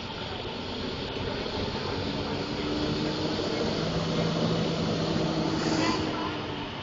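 A heavy motor vehicle's engine running close by with a steady low hum, getting louder over several seconds and then dropping off shortly before the end.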